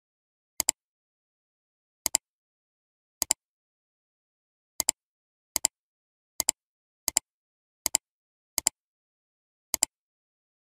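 Short double clicks, about ten of them at uneven intervals, as a TV box's on-screen menu is stepped through item by item.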